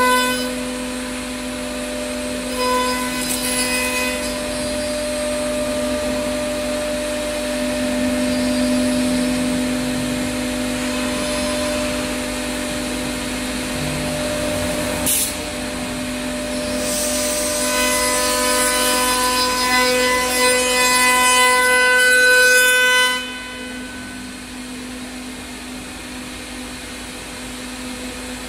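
A 5-axis CNC router's HSD spindle gives a steady high whine while it carves a curved wooden chair part. The rasp of the cutter in the wood swells for several seconds past the middle, then drops to a quieter, duller whine. A single sharp click comes about halfway through.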